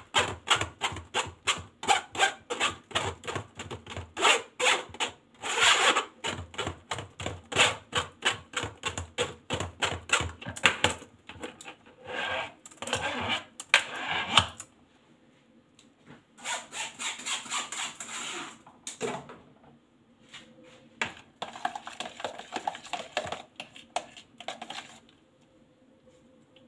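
Metal spoon scraping and pressing blended kiwi pulp through a stainless-steel mesh sieve in quick rasping strokes, about three a second. After about half the time the strokes stop, leaving slower, scattered scrapes with short pauses.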